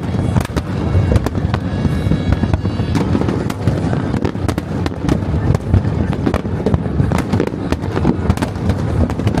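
New Year's Eve fireworks recorded at the launch site: a dense, irregular run of sharp bangs and crackles over a constant rumble of many more explosions.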